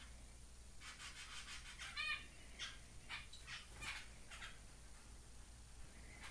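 Zebra finches chirping faintly. A quick run of short high chirps comes about a second in, then a louder nasal call at about two seconds, followed by several more short calls spaced about half a second apart.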